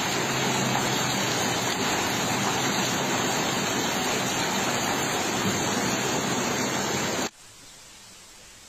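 Floodwater rushing through a street, a loud steady roar of water. It cuts off abruptly about seven seconds in, leaving only a faint hiss.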